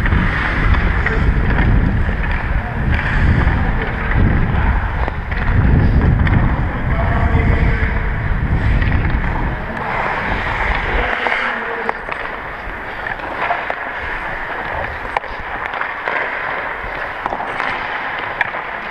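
Wind rushing over the microphone of an action camera worn by a skating hockey player, with the hiss of skate blades on the ice. The low buffeting drops away about eleven seconds in, leaving the blade hiss.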